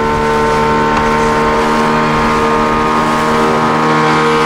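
Boat engine running steadily at cruising speed, its hum holding a constant pitch, with rushing wind and water noise.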